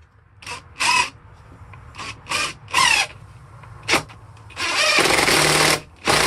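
Power drill driving a long screw into a wooden floor board: several short trigger bursts that spin up in pitch as the screw is started, then two longer steady runs as it is driven home.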